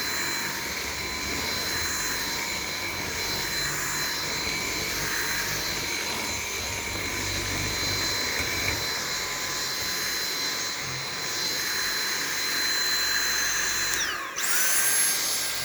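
Dyson V7 Animal+ cordless stick vacuum running on its low power setting with a steady high-pitched motor whine. About fourteen seconds in, the pitch dips briefly, then jumps to a higher, faster whine as the motor changes to a higher speed.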